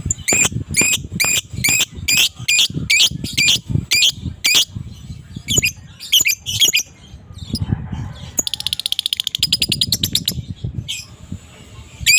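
Adult lovebird calling: a run of sharp, shrill squawks about two a second, then sparser calls, and a little past eight seconds in a fast chattering trill (the 'ngekek' of a fighter lovebird) before a few more squawks.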